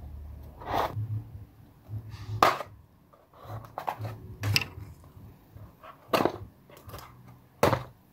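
A small sealed cardboard box being picked and scratched at by hand to break its seal, with about five sharp scrapes or taps spread through and quieter rubbing between them. The seal is holding and the box won't open.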